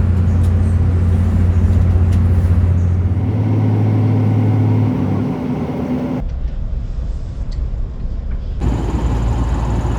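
V/Line diesel train running under way: a steady low engine drone with heavy rumble. The engine note steps up about three seconds in and shifts again around five seconds. The sound changes abruptly twice in the second half.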